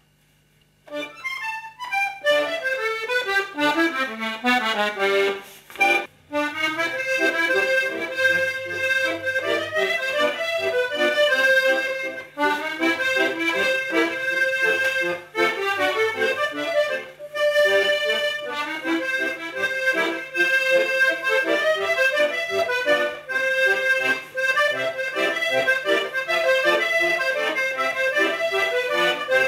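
Accordion playing a tune. It starts about a second in with a falling run of notes, breaks off briefly around six seconds, then plays on without stopping.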